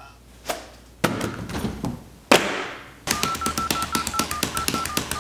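A few scattered knocks, then a fast run of clicks with short beeps, about eight a second, from the buttons of a toy telephone being pawed by a cat.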